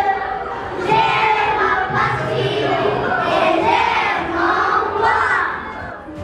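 A group of children chanting together in short, loud phrases.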